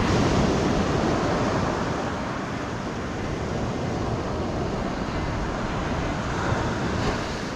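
Surf washing on the beach, mixed with wind buffeting the microphone.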